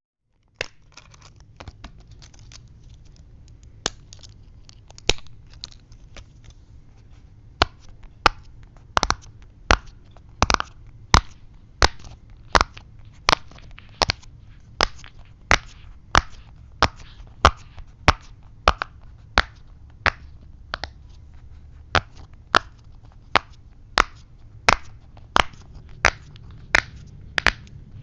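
Silicone pop-it fidget toy, its bubbles pressed one after another, each giving a short sharp pop. A few scattered pops at first, then a steady run of about three pops every two seconds.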